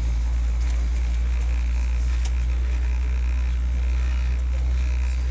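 Steady low rumble and hiss of a jet airliner's cabin as the aircraft taxis.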